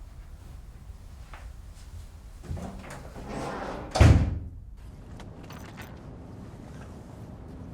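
A sliding door rolled along and slammed shut about four seconds in, a rising rush ending in one sharp bang.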